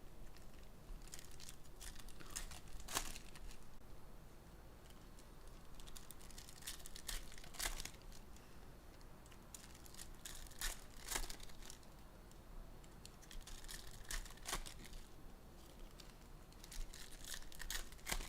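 Plastic wrapping crinkling and tearing in irregular short rustles as a sealed box of trading cards is unwrapped by hand.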